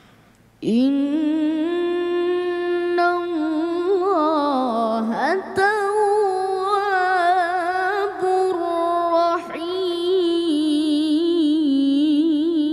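A young boy qari reciting the Quran in melodic tilawah style: long drawn-out held notes with rising and falling ornaments and a wavering vibrato. It starts abruptly about half a second in, with a couple of brief breaks along the way.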